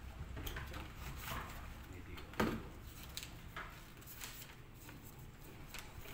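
Paper being handled and unfolded, a rustle with scattered light clicks and knocks; the sharpest knock comes about two and a half seconds in.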